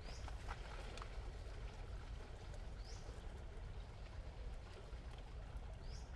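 Forest ambience: a steady low rumble with a short high chirp repeated three times, about three seconds apart.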